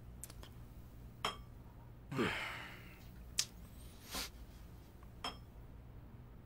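Dishes and glassware set down on a glass tabletop: three light clinks of china and glass about two seconds apart. Between the first two, a short breathy sound falls in pitch.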